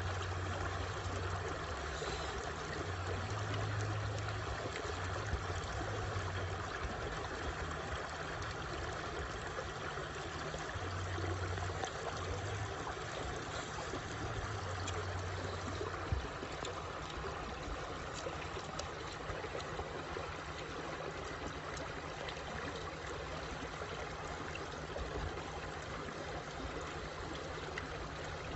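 Shallow stream rushing and trickling over rocks, a steady wash of water, with a low rumble coming and going during the first half.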